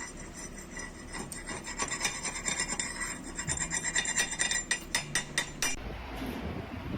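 Rapid, irregular scraping and rubbing strokes of a hand tool on steel, cleaning a fresh weld bead. The scraping stops near the end.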